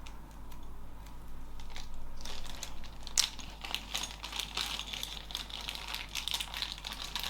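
Plastic packaging crinkling and rustling with small sharp clicks as it is handled, growing busier about two seconds in.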